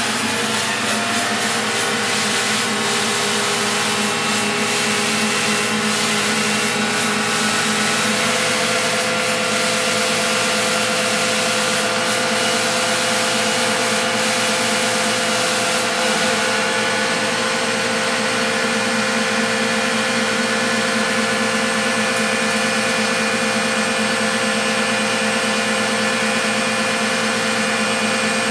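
Van de Graaff generator running: a steady motor drone with a whine layered over it and a hiss. A higher whine joins about halfway through.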